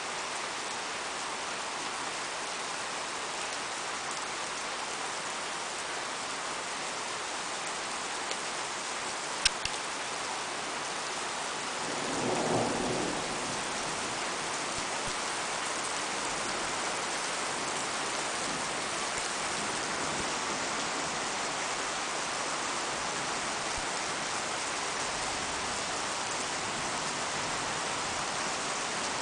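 Steady rain falling on a paved road and lawns, an even, unbroken hiss. A sharp click comes about nine and a half seconds in, and a short low rumble about twelve seconds in.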